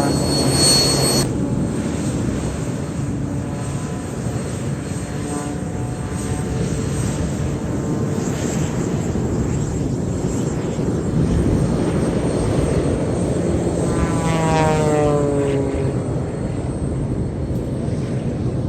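Aerobatic propeller biplane's piston engine running through its display. The drone carries throughout, and on a pass about fourteen seconds in its pitch falls.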